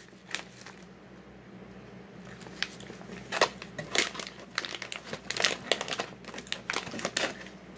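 Clear plastic bag of popcorn crinkling as it is handled: a quiet start, then a string of short, sharp crackles from about two seconds in.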